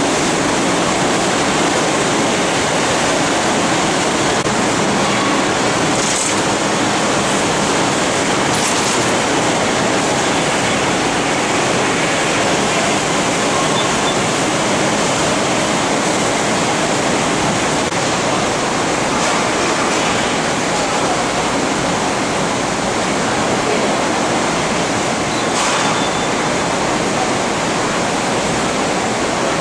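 Steady factory-floor noise from running production machinery: an even, loud hiss with a few faint clicks.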